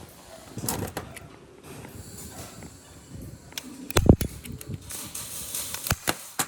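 Workshop handling noise: scattered clicks and knocks of tools or parts being handled. The loudest knock comes about four seconds in, and another sharp one near six seconds.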